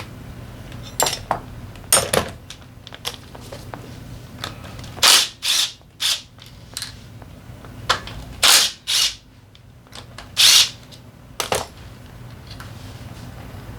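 Workshop tool noise while a Honda PCX 125 engine is taken apart: an irregular series of short, sharp bursts and clicks, some lasting a fraction of a second, over a low steady hum.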